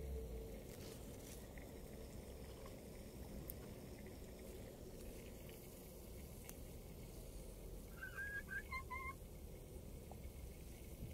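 Faint steady low rumble and hiss of a wood fire burning in a rocket stove, with a few scattered small crackles. A bird chirps a short run of notes about eight seconds in.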